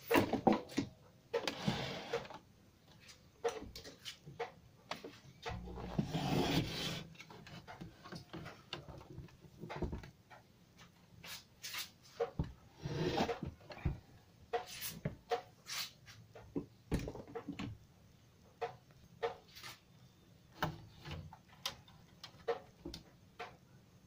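Irregular scraping, rubbing and clicking of hard plastic as a CRT television's plastic cabinet and circuit board are handled and shifted, with a louder stretch of scraping about six seconds in.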